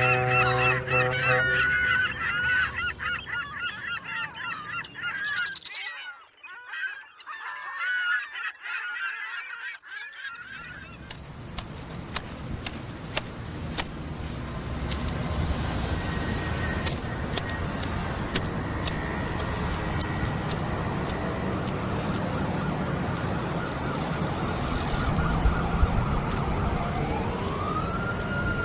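A chorus of calls wavering in pitch for about ten seconds, with a low steady hum under the first second. Then a steady street-noise hiss with scattered clicks, and near the end a siren starts to rise and fall.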